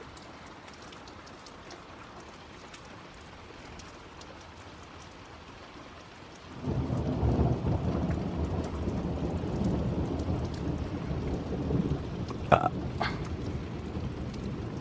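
Steady rain falling, then about six and a half seconds in a long, low rumble of thunder sets in suddenly and rolls on, easing only slightly. Two short, sharp higher sounds cut through near the end.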